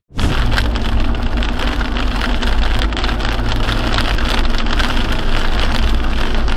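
Steady driving noise of a car on a snow-covered highway, heard through a dashcam: an even hiss of tyres on the snowy road over a low engine and road rumble.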